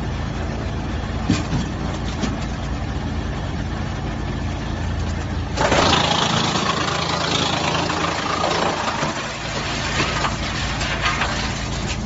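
A 55 kW wood chipper runs with a steady mechanical hum, then about five and a half seconds in a log reaches the cutters and is chipped with a loud, dense crunching noise lasting several seconds.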